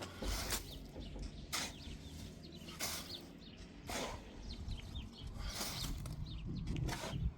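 Small birds chirping, with several short rushing noises about a second apart.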